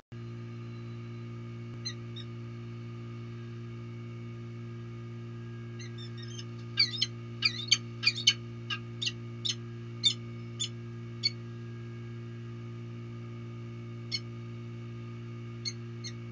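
Peregrine falcon calling: a fast run of about a dozen short, sharp calls in the middle, with a few single calls before and after, over a steady low hum.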